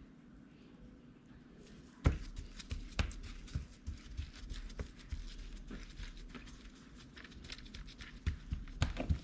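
Irregular small taps and clicks of kitchen handling while seasoning raw chicken, starting about two seconds in and going on steadily, with a low hum underneath.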